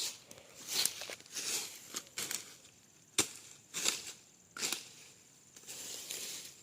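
A blade, likely a machete, slashing through brush and grass in repeated swishing chops, about one stroke a second, with the stalks tearing as they are cut.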